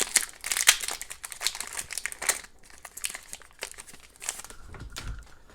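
Foil wrapper of a hockey card pack crinkling and rustling as the pack is opened and the cards are handled, busiest in the first two and a half seconds, then a few sparser rustles.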